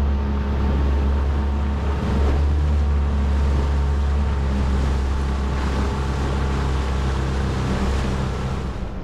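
Small outboard motor running steadily, pushing an aluminium dinghy through the water with a steady low drone, water rushing past the hull. The engine note dips briefly about two seconds in.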